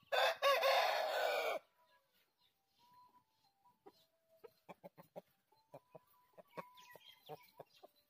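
An Aseel rooster crowing once, a short crow of about a second and a half just after the start. It is followed by a scatter of short, quiet clucks.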